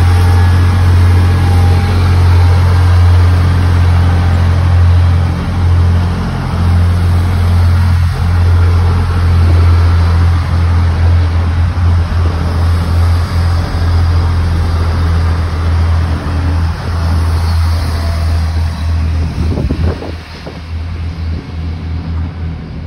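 Irish Rail 29000 class diesel multiple unit (units 29425 and 29104) moving along the platform, its diesel engines giving a steady low drone over wheel and rail noise, with wind on the microphone. The drone falls away about 20 seconds in as the train draws off.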